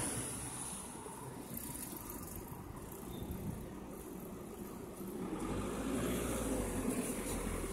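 City street ambience with passing car traffic: one vehicle's low engine hum fades away in the first second, and another builds up from about five seconds in.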